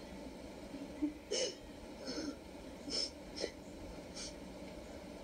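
A woman crying without words: a run of short, sharp sniffs and sobbing breaths, about five in a few seconds.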